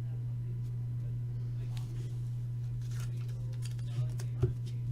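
Trading cards being handled: light rustles and small ticks, with a sharper click near the end, over a steady low electrical hum.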